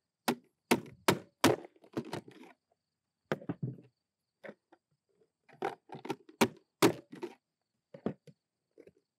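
Push-down plastic vegetable chopper slammed shut again and again, its grid blade cutting potatoes into pieces: a loud series of sharp cracks and thunks, about fifteen strokes in uneven groups.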